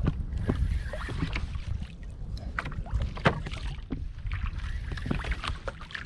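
Water slapping and splashing against a kayak hull with irregular short knocks, over a steady low wind rumble on the microphone.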